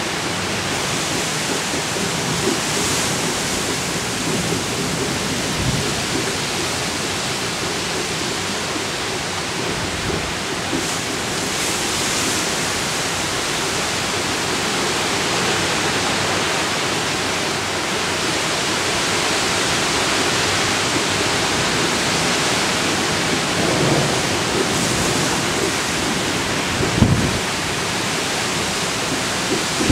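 Heavy thunderstorm downpour with gusting wind, a dense steady rush of rain and wind noise. A couple of short low thumps come near the end.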